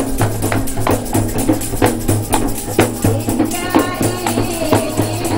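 Rebana frame drums beaten in a steady rhythm, about two strong beats a second, with voices singing along.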